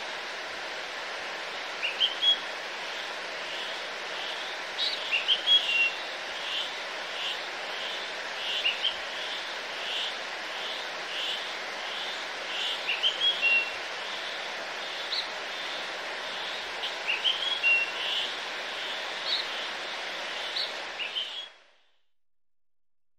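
Birds chirping, repeating short high calls over a steady rushing hiss of outdoor ambience. It all cuts off suddenly near the end, leaving near silence.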